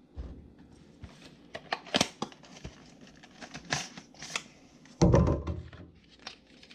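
Cardboard retail boxes and a white cardboard insert tray being handled as a GoPro 3.5 mm mic adapter is unpacked: scattered taps, light clicks and crinkling rustle. A short, louder low sound comes about five seconds in.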